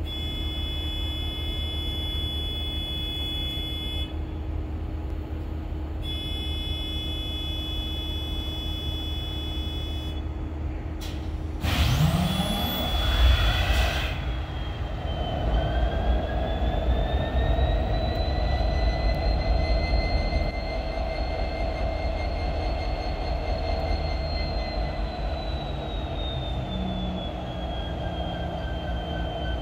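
EMD 710 two-stroke diesel of an SD70ACe locomotive auto-starting from cold. Over a low rumble come two spells of steady high tones; then, about 12 seconds in, the engine cranks with a rising whir and fires. It settles into running with a whine that climbs slowly and falls away near the end.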